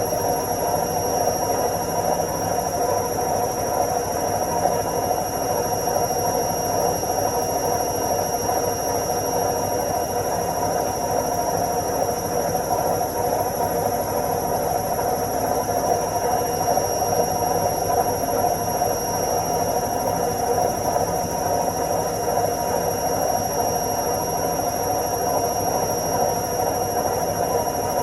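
Washing machine in its spin cycle: a steady, even whirring drone with a thin high whine held above it.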